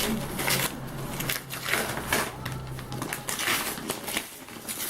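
Packaging being handled and unwrapped, with irregular crinkling and rustling.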